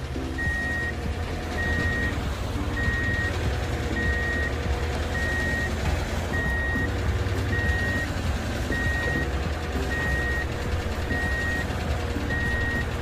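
Truck reversing alarm beeping steadily, about once every 1.2 seconds, over a low, steady engine rumble.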